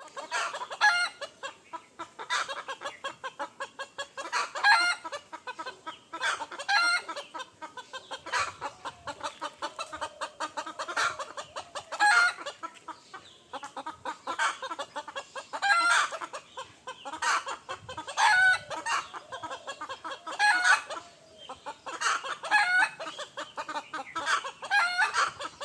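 Roosters crowing again and again, a loud crow every couple of seconds, with clucking in between.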